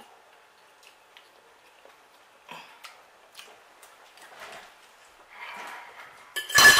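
Soft eating sounds: scattered light mouth clicks and smacks while seafood boil is being chewed, then one loud knock or clatter shortly before the end.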